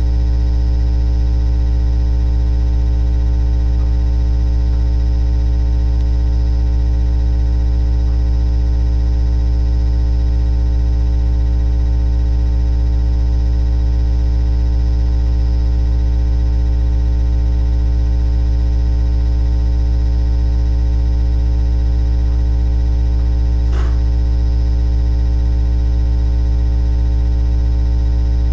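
Loud, steady low hum with a buzzy edge, unchanging throughout, with a single brief click near the end.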